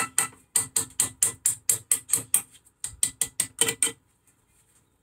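Quick light taps of a small hammer driving a greased brake-pad retaining pin through a red brake caliper, where the fresh paint makes it a tight fit. The taps come at about four a second and stop about four seconds in.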